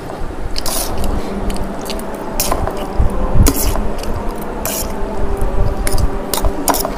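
Close-up eating sounds of chow mein noodles being eaten fast: wet slurps and chewing, with forks clicking and scraping on the plates. A steady low hum runs underneath.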